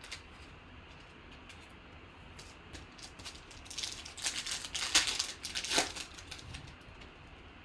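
A foil trading-card pack wrapper being torn open and crinkled by hand: a burst of crinkling rustles in the middle, loudest about five seconds in, with a few faint ticks of card handling before it.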